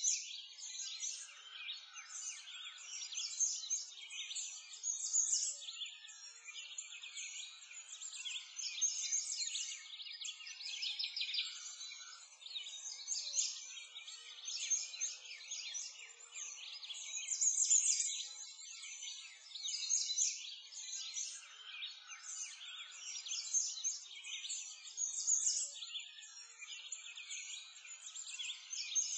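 A dense chorus of small birds chirping and twittering without a break, its loudness swelling and easing every couple of seconds.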